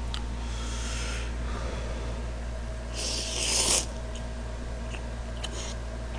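A man slurping noodles from a bowl of jjamppong, with a soft airy sound near the start and a loud slurp about three seconds in. A steady low hum runs underneath.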